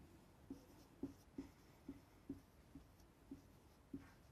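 Marker pen writing on a whiteboard: about ten short, faint squeaks and taps, roughly two a second, as the letters are drawn.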